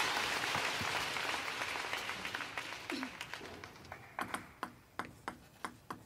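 Arena crowd applause after a won point, fading away over a few seconds. It gives way to a run of sharp, separate clicks, typical of table tennis balls bouncing.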